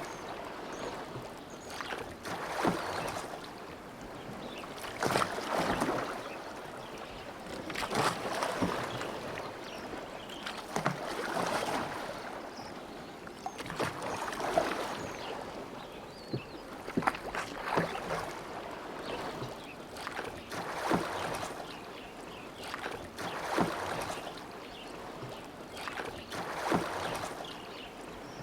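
Oars dipping and pulling through lake water in a steady rowing rhythm: a swirling splash about every three seconds, with water dripping and lapping between strokes.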